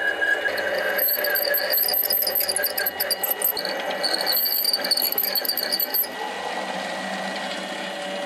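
Mini lathe running with its cutting tool plunging a groove into a metal blank turned between centres. From about a second in, the cut squeals in high tones with rough scratching, dips briefly, squeals again while cutting oil is dripped on, and stops about six seconds in, leaving the lathe's motor hum.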